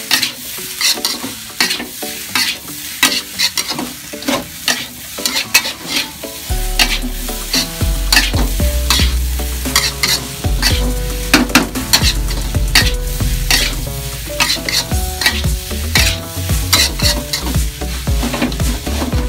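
Metal spatula scraping and knocking against an aluminium wok while stir-frying fried rice: repeated strokes, a couple a second, over the sizzle of the rice. A low steady hum comes in underneath about six seconds in.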